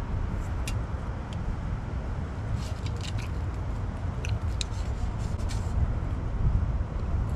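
Fried fish being pulled apart over crumpled aluminium foil and eaten: a few short crinkles and clicks, mostly in the middle, over a steady low outdoor rumble.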